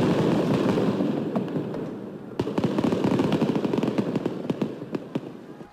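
Riot commotion sound effect: a loud, dense rumble of noise, then from about two and a half seconds in a rapid crackle of sharp bangs like firecrackers, slowly fading.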